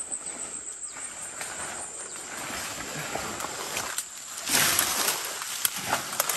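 Leaves and branches rustling and swishing as people push through dense undergrowth on foot, louder for about a second from four and a half seconds in. A steady high insect drone runs underneath.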